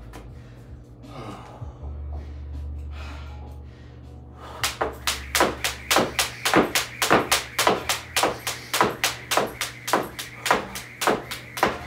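Jump rope double-unders: the rope slapping and the feet landing in an even rhythm of about three hits a second, starting about four and a half seconds in. Background music plays underneath.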